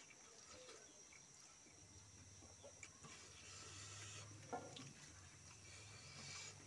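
Near silence: faint background with a low hum and a soft click about four and a half seconds in.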